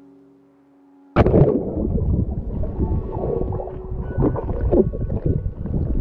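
Water churning and bubbling around an action camera plunged underwater by a swimmer. It starts abruptly about a second in, with many short knocks from swimming strokes. Soft background music with held tones plays in the first second and faintly beneath.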